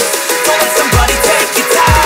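Electronic hip hop beat with heavy sliding bass drops and fast hi-hats, no vocals in this stretch.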